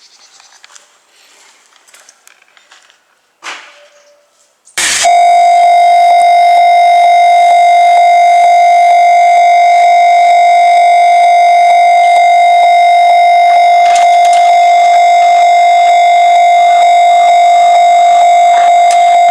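Japanese level crossing warning bell switching on abruptly about five seconds in: a loud electronic ringing on one high tone that keeps going without a break, signalling an approaching train.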